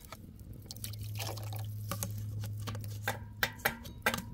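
Liquid splashing and dripping in a cooking pan, with sharp metallic clinks of a utensil against the pan from about three seconds in.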